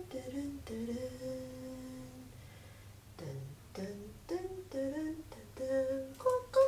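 A woman humming a wordless tune: one long held note, then a run of short notes stepping up and down.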